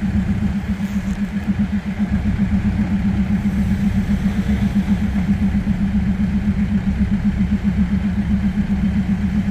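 Railway diesel engine idling with a steady, fast, even throb.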